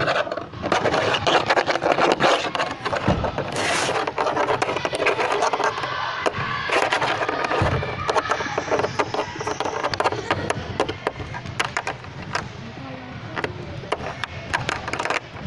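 Plastic Lego bricks clattering and clicking as they are handled. The clicks come thick and fast, with a couple of duller thumps.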